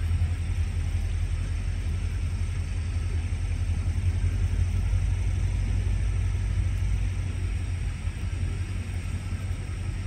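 A steady low rumble with no distinct events, slightly quieter near the end.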